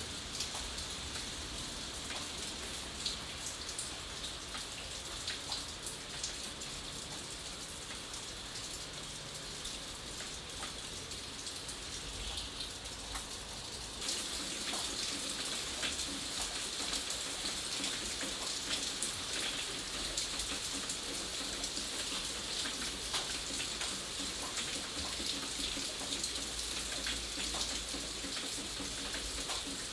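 Steady rain falling, with individual drops pattering audibly on a surface. About halfway through it turns a little louder and brighter and stays that way.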